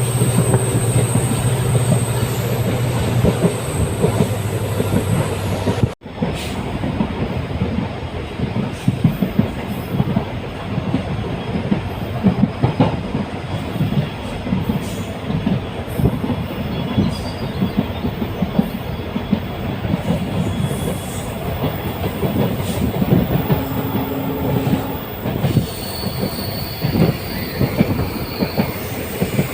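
Passenger train running at speed behind an EMD WDP-4D diesel locomotive, with wheels clattering on the rails. A steady low engine hum is heard for about the first six seconds. The sound breaks off abruptly there, and dense, irregular wheel-and-rail clatter carries on after it.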